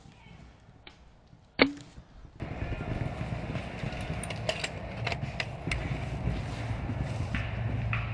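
A single sharp shot from a Silverback TAC-41 spring-powered airsoft sniper rifle about a second and a half in, with a brief low ring after it. Then wind on the microphone, rustling and a few light clicks.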